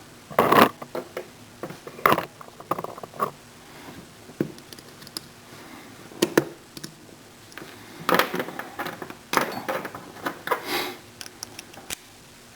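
Small metal parts of a padlock's pin-tumbler cylinder being handled as it is taken apart: irregular sharp clicks, clinks and short scraping rattles in bursts, with quieter pauses between.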